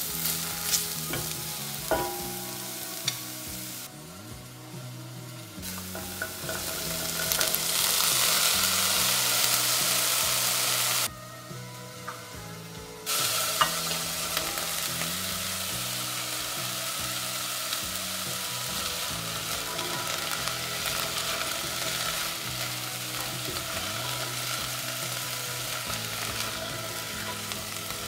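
Leek and vegetables sizzling as they sauté in oil in a pot, stirred with a spatula that gives a few scraping taps against the pot early on. The sizzle swells louder for a few seconds, drops away briefly near the middle, then carries on steadily.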